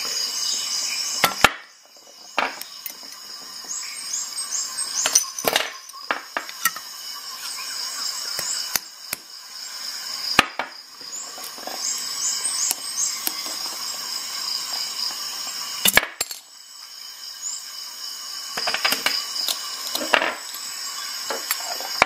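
Metal multi-tool bottle openers working the crown caps of glass beer bottles: a dozen or so sharp metallic clicks and clinks of steel against cap and glass, spaced irregularly, with a cluster of them near the end.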